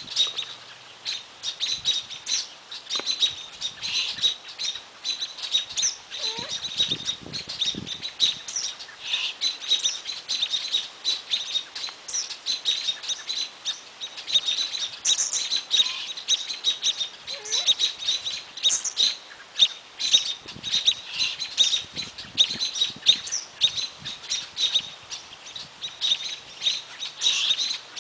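Small birds chirping: a dense, unbroken run of short high chirps, several a second, with a few faint lower gliding notes now and then.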